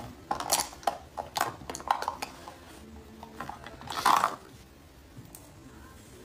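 Small hard makeup items clinking and rattling as they are sorted through: a run of quick clicks in the first two seconds, then a louder clatter about four seconds in.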